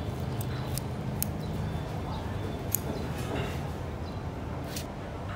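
Metal kitchen scissors snipping, a handful of short sharp clicks spread across a few seconds, over a steady low background hum.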